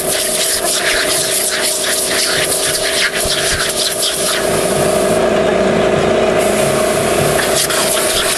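Compressed air hissing from an air-compressor blow nozzle over a steady hum, choppy and broken up through the first half as the jet is repeatedly interrupted.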